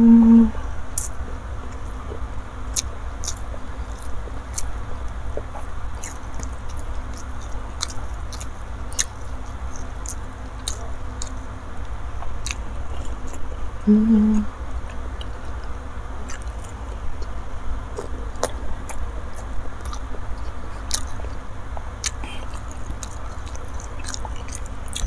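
Close-miked chewing and wet mouth clicks of someone eating soft rice and spicy fish roe by hand. A brief hummed "mm" comes at the start and again about halfway through.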